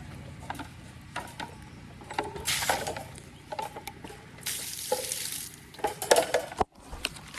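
Clattering and scraping of feed buckets and a scoop, with many small knocks and two short rushing pours about two and a half and four and a half seconds in.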